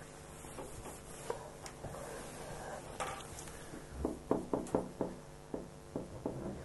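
A cloth rubbing across a whiteboard, wiping it clean, then a marker writing on the whiteboard in a quick run of short, sharp strokes from about four seconds in.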